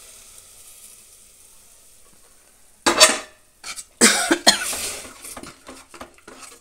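Sambar sizzling as it meets the hot oil and onion tempering, the sizzle dying away over the first couple of seconds. Then a metal ladle stirring the curry scrapes and knocks against the metal pot, loudly once about three seconds in and several times a second later.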